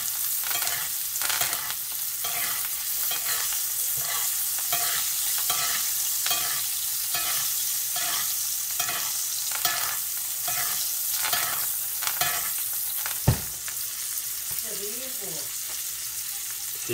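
Butter sizzling around steaks in a cast-iron skillet while a metal spoon scoops it up and pours it over them about once a second: butter-basting. A little before the end the basting stops with one sharp clack as the spoon is set down, and the sizzle goes on.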